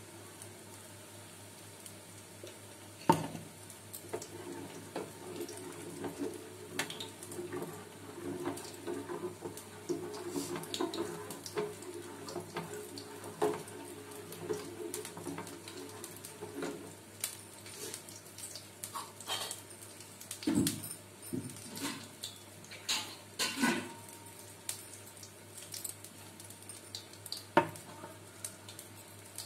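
Steel kitchen utensils clinking and knocking: spoons against pots and bowls, with several sharp clatters, the loudest about three seconds in. Water may be running at a sink.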